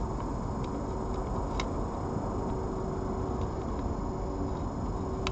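Steady low background rumble and hiss with a faint constant hum, broken by a few faint ticks and clicks, the clearest about a second and a half in.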